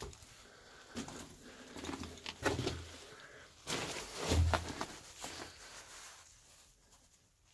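Footsteps crunching and clattering over loose rocks, with two heavier thuds a couple of seconds apart in the middle; the sound dies away near the end.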